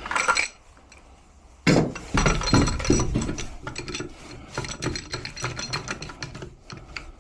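Pipe wrenches clanking and scraping on the furnace's gas valve and its iron pipe fittings: a brief clatter, then from about two seconds in a dense run of metallic clinks and knocks with some ringing, as the stubborn valve is worked loose.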